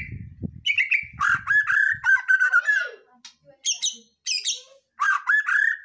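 White-rumped shama (murai batu) singing loudly: three bursts of clear whistled phrases mixed with fast chattering notes, separated by short pauses.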